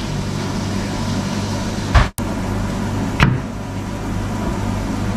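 Steady mechanical hum of kitchen ventilation, with two knocks of a knife on a plastic cutting board about two and three seconds in.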